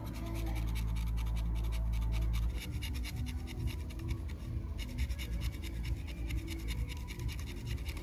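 Utility knife blade scraping a small metal cassette-deck part held in the fingers, in rapid repeated scratching strokes with a short break a little past the middle.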